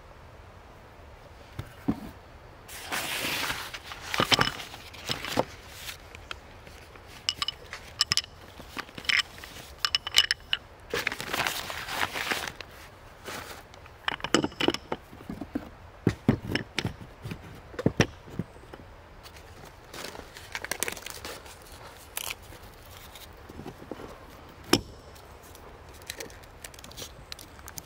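Hands handling a drilled branch candelabra and white candles on a wooden plank table: scattered knocks, scrapes and clicks, with two longer rustling spells, about three seconds in and about eleven seconds in. Near the end, candles are pushed into the holes in the wood.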